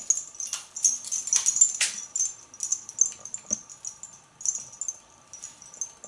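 Light, irregular clicks and clinks as an African grey parrot shifts about on its play stand, which has small metal toys hanging from it. A faint steady tone sounds underneath from about two seconds in.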